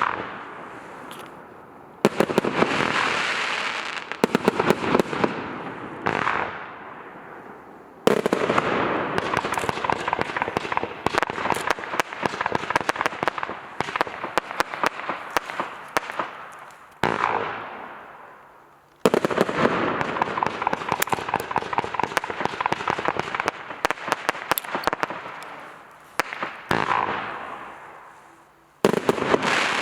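A 196-shot compound firework cake firing rapid volleys of shots, many per second. The volleys come in several runs that start abruptly and fade away between them.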